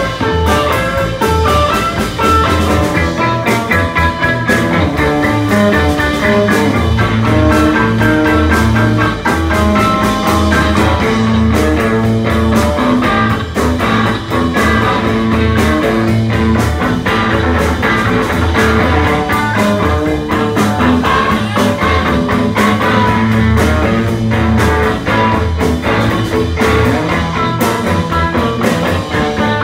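Rock band playing live: electric guitar, electric bass and drum kit, with a steady driving beat.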